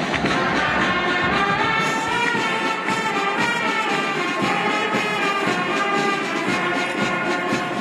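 Music with brass instruments playing held notes at a steady level.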